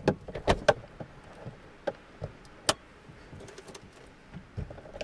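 A few sharp clicks and knocks, irregularly spaced, most of them in the first three seconds, with no motor or engine running.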